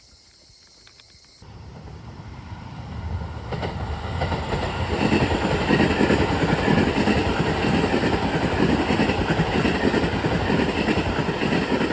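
A train approaching and passing close by. Its rumble builds over the first few seconds, then stays loud.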